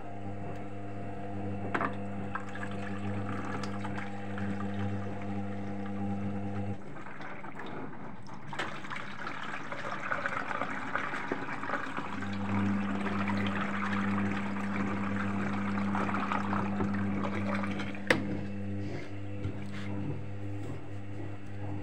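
Water being poured into a front-loading washing machine during its wash, with the water rushing in for several seconds. The machine's motor gives a steady low hum that stops about seven seconds in and starts again a few seconds later, and there is one sharp click near the end.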